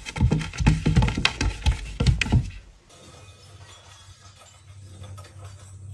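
A rapid flurry of loud knocks and clatters lasting about two and a half seconds as a cat lunges about on a wooden wardrobe shelf, then only a faint steady low hum.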